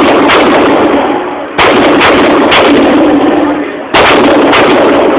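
Gunshots at a firing range: three loud shots, at the start, about a second and a half in and about four seconds in, with several more shots close between them. Each shot leaves a long, loud ringing tail.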